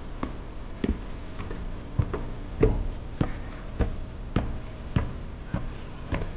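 Footsteps of one person walking at a steady pace on a hard surface, each step a sharp knock, a little under two steps a second.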